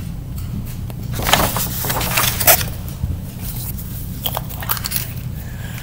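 Close handling noise: two spells of crackling and scraping, about a second in and again about four seconds in, over a steady low hum.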